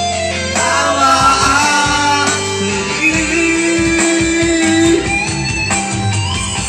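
A song with guitar accompaniment and a singing voice, with one long held note around the middle.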